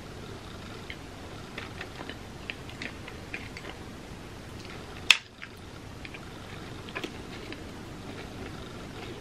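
Close mouth sounds of someone eating small candies and licking her fingers: soft chewing and lip smacks with scattered small clicks, and one sharp click about five seconds in, the loudest sound.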